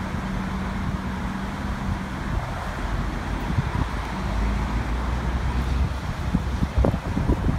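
City bus engine running as the bus drives slowly through the intersection, a steady hum over a low rumble that swells midway. Wind buffets the microphone near the end.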